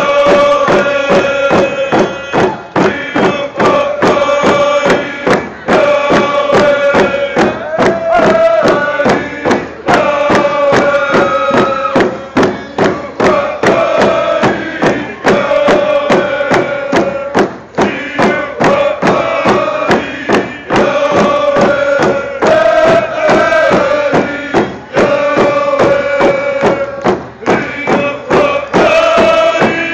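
Ahousaht (Nuu-chah-nulth) group song: many voices chanting in unison over a steady drumbeat, in repeated phrases about two seconds long with short breaks between them.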